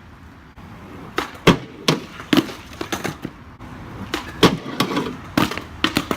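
Skateboard deck and wheels clacking against the ground: an irregular run of sharp knocks starting about a second in, several of them loud, over a low rolling rumble.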